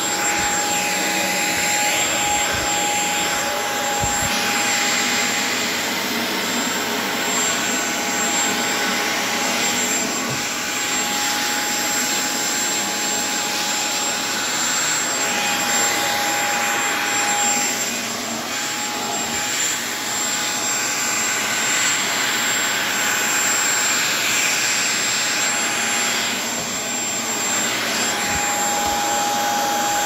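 Shark stick vacuum running continuously as its floorhead is pushed over a shaggy rug: a steady rush of suction with a thin, high steady whine from the motor.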